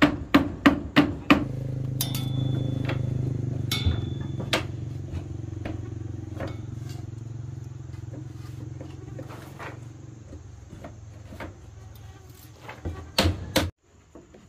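A hammer knocking nails into wooden boards, about three blows a second, then a steady engine hum that sets in and slowly fades away. A few more sharp hammer knocks come near the end.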